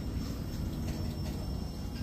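Freight train cars rolling slowly past, a steady low rumble of steel wheels on the rails as the train slows toward a stop.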